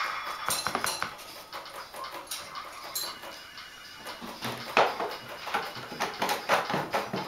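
A small rabbit's claws scrabbling on the wire-bar top of a plastic pet carrier: irregular metallic clicks and rattles of the bars, getting louder and busier in the second half.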